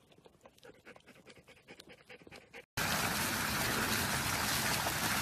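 Soft wet licking sounds from dogs licking a cat, then, after a cut about two and a half seconds in, a much louder steady rush of splashing water from a foam-covered garden fountain.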